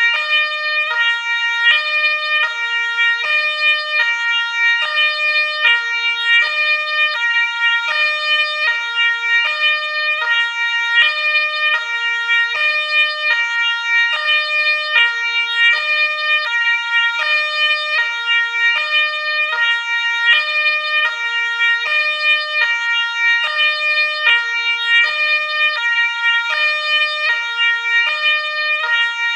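Ambulance siren sounding continuously, stepping back and forth between tones in a repeating pattern about once a second, at a steady loudness with no rise or fall of approach.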